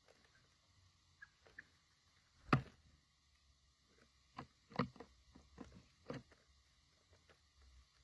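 Brambling pecking sunflower seeds on a wooden log: irregular sharp taps and clicks of beak on seed and wood. The loudest tap comes about two and a half seconds in, and a quick cluster of taps follows around five to six seconds.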